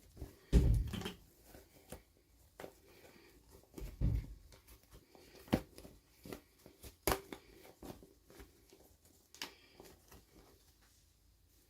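Hands handling small plastic toy pieces and packaging: scattered clicks and taps, with two louder low thumps about half a second and four seconds in.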